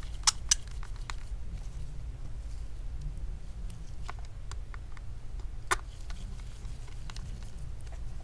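Small sharp clicks and ticks of a T5 Torx screwdriver and screws being driven back into a MacBook Pro's speaker mount, a few scattered through, the loudest two near the start and one about six seconds in, over a low steady hum.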